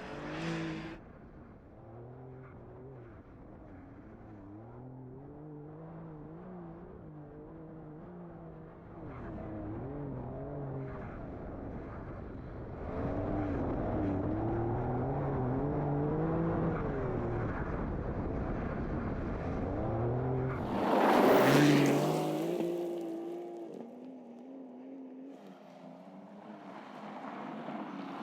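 Porsche 911 Dakar's twin-turbo flat-six engine revving up and easing off again and again as the car is driven off-road. About three-quarters of the way in there is a brief, louder rush of noise.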